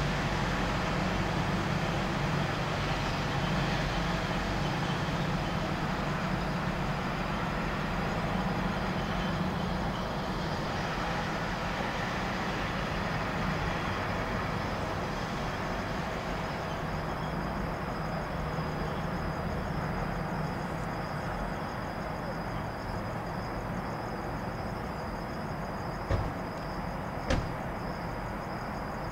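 Steady outdoor night background noise with a low rumble, like distant road traffic. About halfway through, a thin, high, steady trill joins in, and two sharp clicks come near the end.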